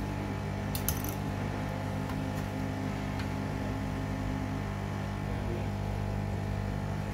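Handheld desoldering tool running with a steady mechanical hum as its nozzle works the solder joints on a power supply circuit board, with a few light clicks about a second in.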